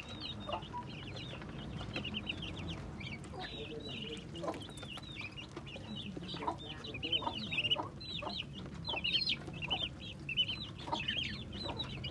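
A group of ducklings peeping constantly, many short high cheeps overlapping, several each second, busier in the second half. Scattered light taps run under them as the ducklings peck feed from a tray.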